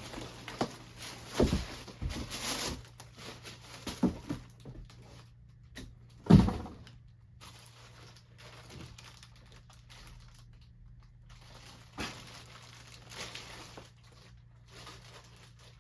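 Packaging crinkling and rustling with scattered knocks as a boxed aluminium radiator is unpacked and handled, with one heavier thump about six seconds in.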